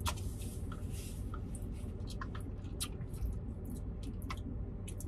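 Quiet eating and drinking sounds: scattered short wet clicks and smacks of chewing and sipping through a plastic straw, over a steady low hum in a car cabin.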